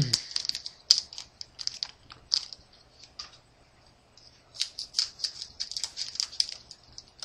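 Foil trading-card booster pack crinkling and crackling as it is handled and cut open with scissors, in quick clusters of sharp crackles, with a pause of about a second in the middle.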